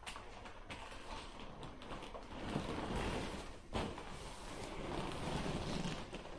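Crumpling, rubbing and rustling of a deflated vinyl pool-toy inflatable as it is gathered and squeezed by hand, in uneven swells, with one sharp click nearly four seconds in.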